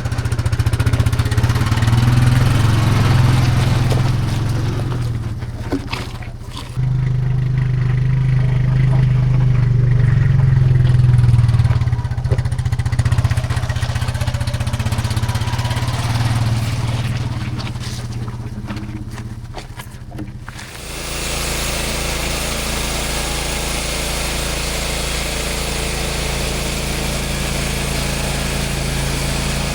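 A small engine runs steadily, with a strong low hum. The sound changes abruptly about seven seconds in and again about twenty seconds in, switching to a steadier, brighter engine running.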